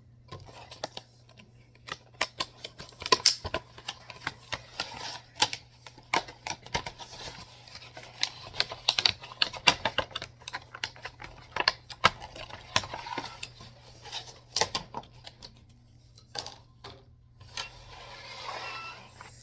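Many irregular sharp clicks and clacks of small die-cast model parts and packaging being handled and set down, ahead of assembling the model. A softer rustle comes near the end.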